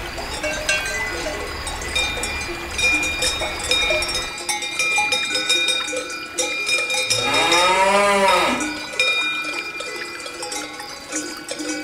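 Cowbells on grazing cattle clanking and ringing continually. A cow gives one long moo, rising then falling in pitch, about seven seconds in.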